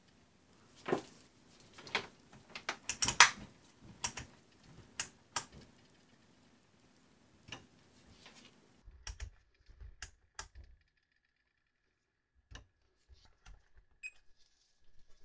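Scattered clicks and light knocks from handling a Fluke digital multimeter, its test probes and the plastic case on the bench, with a quick cluster about three seconds in. After about nine seconds the clicks turn fainter and sparser, with a brief high beep near the end.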